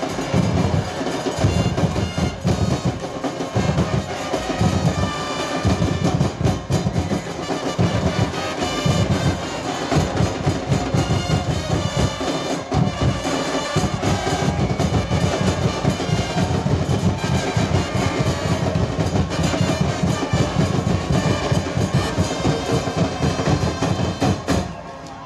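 A fan-section drum band: bass drums (bombos) beating a fast, steady rhythm with brass playing over them. The sound drops briefly near the end.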